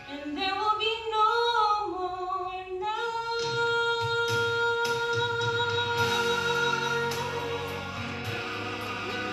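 A woman singing solo: a short melodic phrase, then one long held note for about five seconds from about three seconds in.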